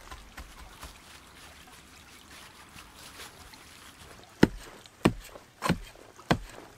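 Soil being worked by hand on an earth-covered log shelter: faint scraping and rustling, then four sharp knocks about two-thirds of a second apart.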